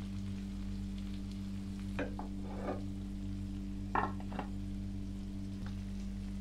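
Sisig sizzling on a cast-iron sizzling plate, a faint steady hiss over a constant low hum, with short clattering sounds about two seconds in and again about four seconds in as the plate is handled.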